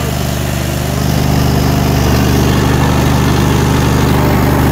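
Cub Cadet 1641's 16 hp Briggs & Stratton Vanguard V-twin engine running steadily, growing a little louder about a second in. The engine is worn out, with what the owner calls serious blow-by.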